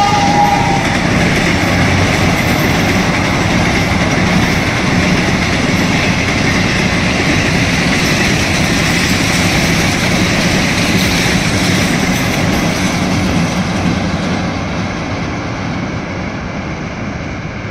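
Passenger train running past at speed, a steady rush of wheels and coaches on the rails that fades away over the last few seconds.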